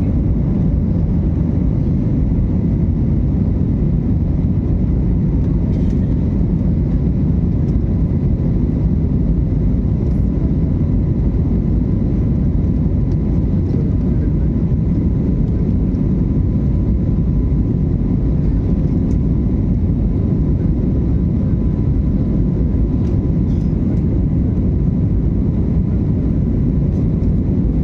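Airliner cabin noise during takeoff and climb: a steady, deep rumble of jet engines and airflow, with a faint steady whine above it.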